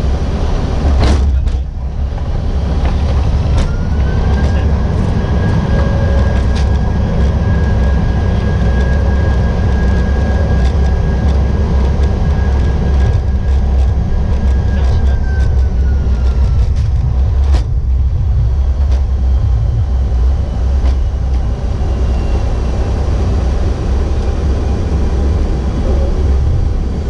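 Airbus A330 on its landing roll, heard from the cockpit: a heavy, steady rumble of the wheels on the runway. About three seconds in an engine whine rises and holds, then falls away about seventeen seconds in, typical of reverse thrust being applied and brought back to idle. Sharp clicks about a second in and again near where the whine falls away.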